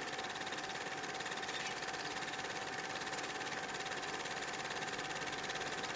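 Black & Decker electric plunge router running steadily while routing the edge of an MDF tabletop, a steady whine over even motor and cutting noise.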